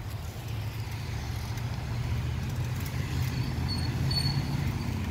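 Road traffic: the low engine rumble of a passing motor vehicle, growing louder toward the end. A few short high chirps sound near the end.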